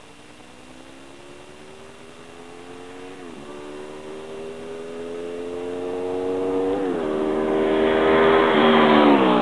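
Honda VFR800 V4 engine breathing through a Wolf underseat exhaust, accelerating hard and shifting up through the gears: the pitch climbs, then drops back at each change, three times. It grows steadily louder as the bike approaches.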